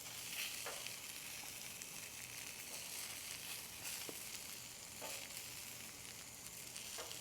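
Food sizzling steadily on a hot Blackstone flat-top griddle, with a few faint clicks scattered through.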